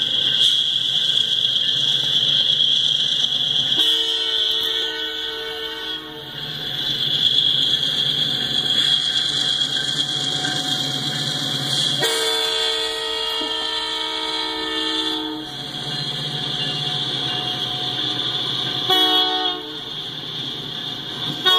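Canadian Pacific diesel locomotive sounding its multi-note air horn in the grade-crossing pattern: two long blasts, a short one, then the start of a final long one near the end. Under the horn, the locomotives and autorack cars rumble past, with a steady high whine.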